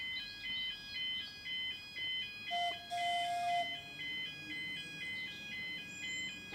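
Level crossing warning alarm, an electronic two-tone yelp switching rapidly between a higher and a lower note: the signal that a tram is approaching the crossing. About two and a half seconds in, a single steady lower note sounds over it for about a second.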